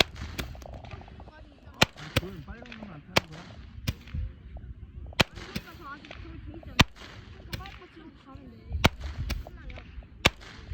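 Handheld firecrackers going off: about ten sharp cracks at irregular intervals, with people's voices faintly underneath.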